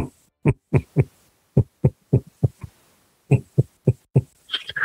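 A run of short, soft thumps, irregular, coming two to four a second in little bursts with gaps between. Near the end there is a brief higher, hissy sound.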